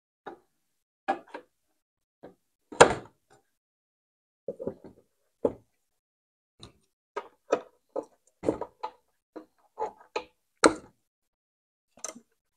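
Plastic wire spool and its spindle hub being handled and seated inside a MIG welder's wire-feed compartment: a string of short clicks and knocks, the loudest about three seconds in and again near eleven seconds.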